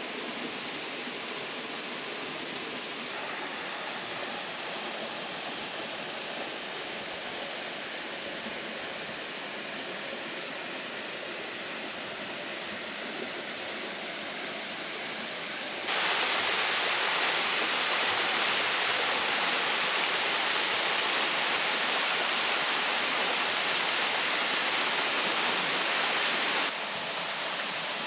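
Steady rushing hiss of a waterfall pouring down into its river pool. It becomes abruptly louder a little past halfway through and drops back again near the end.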